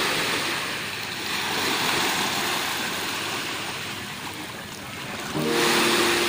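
Small waves washing up onto a sandy beach, a steady rushing wash that swells and ebbs. About five seconds in, a soft piano melody comes in over it.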